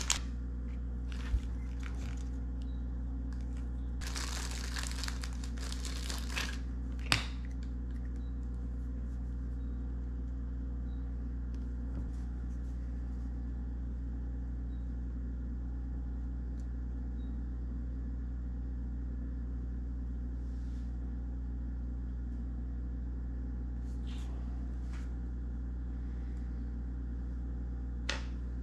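A steady low electrical hum, with plastic test-kit packaging crinkling for a couple of seconds about four seconds in, a sharp click soon after, and a few faint rustles near the end.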